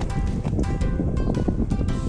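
Background music with a steady beat, with held notes over regular percussion.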